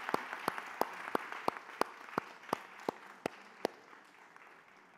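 Audience applauding and dying away, with a few louder, evenly spaced claps about three a second standing out over the crowd until about three and a half seconds in.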